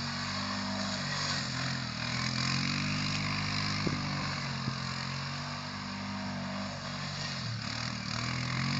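ATV engine running as the machine mows through tall weeds, its pitch rising and falling every few seconds as the throttle and load change.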